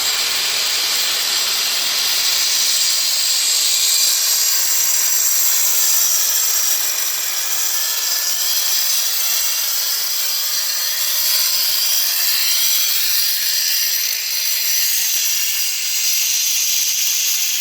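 A power tool running steadily: a loud, high hiss with almost no deep hum, its tone slowly wavering.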